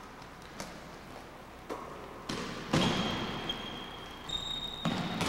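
A basketball bouncing and thudding on a hardwood gym floor, several separate sharp hits ringing in the large hall, the loudest nearly three seconds in. A thin, steady high whine runs through the second half.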